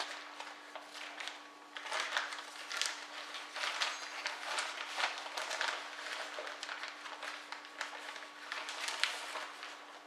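Paper rustling and shuffling as loose sheets, booklets and plastic document sleeves are handled and laid down, in irregular crackles, over a faint steady hum.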